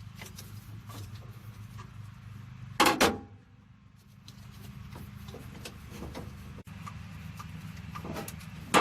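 Hand tools knocking and clinking on metal engine parts while the front accessories are unbolted: scattered small clicks, two loud knocks about three seconds in and another near the end, over a steady low hum.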